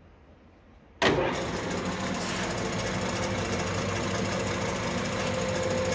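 LeBlond Regal gear-head lathe starting up about a second in and running steadily in its lowest speed, 45 RPM at the spindle, with the motor's hum and the whir of the headstock gears.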